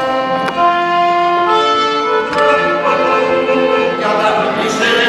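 A small live band plays a tune of held notes on violin and brass, including trombones, with an acoustic guitar.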